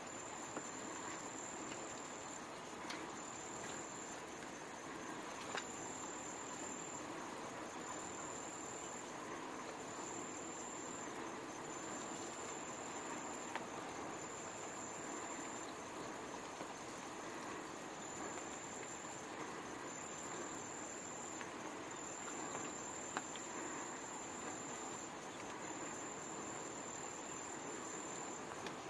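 An insect trilling at a high, steady pitch in repeated phrases of about a second, with short gaps between them, over a steady outdoor hiss. A few faint clicks come through.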